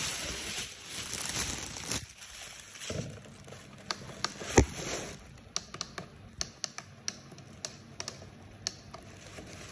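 A string of small, sharp clicks and taps, sparse at first and quicker after about five seconds, with one louder knock about halfway through: hands working the controls and housing of a PAR LED light.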